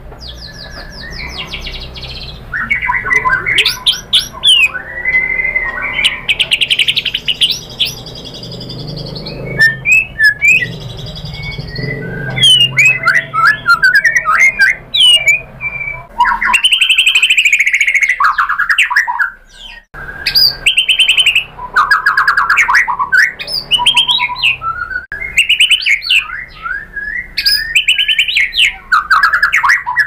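Male white-rumped shama singing loudly and at length, running through varied phrases: clear whistles, rapid trills and harsh chattering runs, with a brief pause about two-thirds of the way through.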